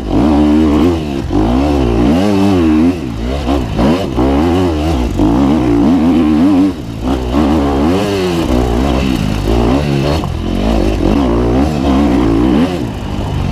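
KTM 250 XC-F single-cylinder four-stroke dirt bike engine revving up and down over and over as the throttle is rolled on and off, with brief drops when it is shut off a couple of times.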